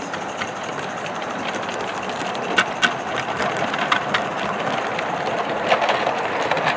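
Live-steam Accucraft Hunslet model locomotive in 16 mm scale running slowly past with its train: a steady hiss of steam and exhaust that grows a little louder as it nears. Sharp clicks, some in close pairs, are the wheels crossing rail joints.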